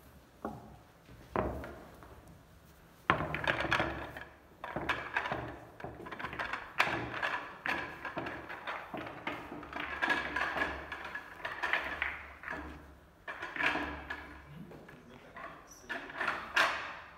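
Billiard balls clicking and knocking against each other as they are packed into a triangle rack on the table, in a long irregular run of sharp clacks that grows busier after about three seconds.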